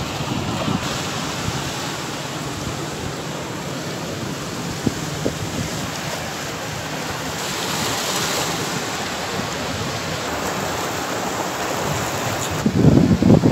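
Sea waves washing steadily with wind blowing across the microphone, a couple of faint clicks about five seconds in, and heavy wind buffeting on the microphone near the end.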